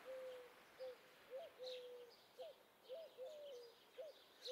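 Faint bird calls: a run of short, low cooing notes, some held and some rising at the end, about two a second, with a few faint high chirps over them.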